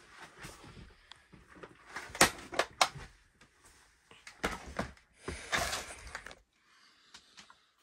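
Rustling and clattering of household trash and debris, with several sharp clacks two to three seconds in and a longer rustle around six seconds.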